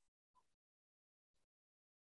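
Near silence: a pause between sentences of speech, the audio gated to digital silence.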